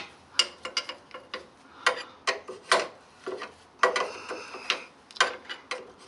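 Steel combination spanner clinking against the lower securing nut of an MGB front anti-roll bar drop link as it is worked round in short strokes, running the nut up its thread. A string of sharp metallic clicks, uneven in spacing, about two or three a second.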